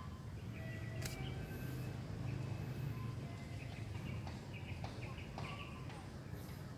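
Birds chirping in short, scattered calls over a steady low outdoor rumble, with one sharp click about a second in.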